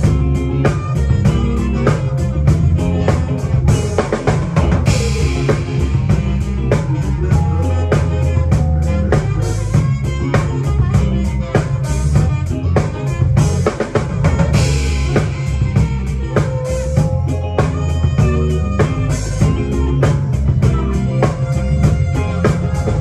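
Live band playing, heard from right behind the drum kit: the kit is loudest, with kick, snare and rimshots in a steady groove over bass, guitar and keys. Cymbal washes swell about five seconds in and again near fifteen seconds.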